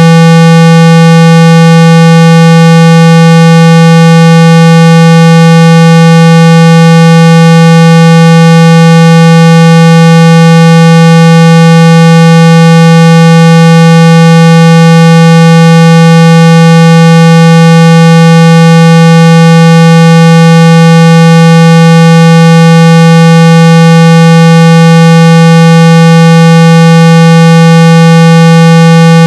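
Loud, steady 165 Hz electronic tone held without any change, with fainter overtones stacked above it. It is a speaker-cleaning tone, played through a phone's loudspeaker to shake dust and water out of the speaker grille.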